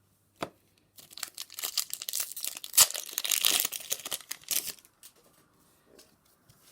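Foil trading-card booster pack wrapper being torn open and crinkled by hand: a dense crackling rustle lasting about four seconds, with one sharp crack about halfway through.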